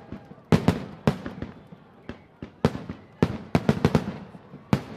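Fireworks salute shells bursting in irregular loud bangs, about a dozen, some in quick clusters of three or four, each with a short echoing tail.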